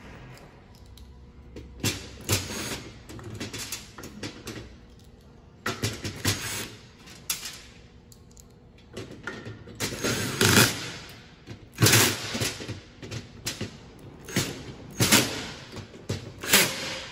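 Ryobi cordless drill driving screws through caster wheel mounting plates in short runs, mixed with clicks and knocks of screws and metal parts being handled.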